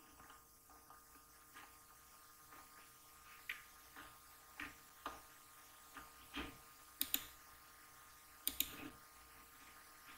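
Faint, scattered clicks from a computer mouse and keyboard while scrolling through code, with two sharper pairs of clicks about seven and eight and a half seconds in.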